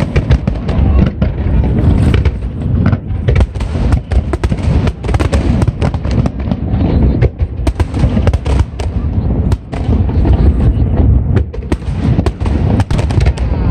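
Aerial fireworks display: many shells bursting in rapid, overlapping bangs that merge into a near-continuous barrage.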